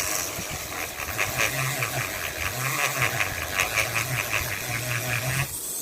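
Rapid, rhythmic scrubbing strokes as the metallic finish is sanded off a steering wheel knob, with a low hum that breaks off briefly about halfway through and stops near the end.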